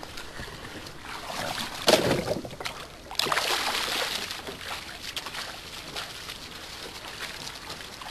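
Shallow water splashing and sloshing close up as a person wades through it beside a small boat, with two louder splashes about two and three seconds in. No motor is running.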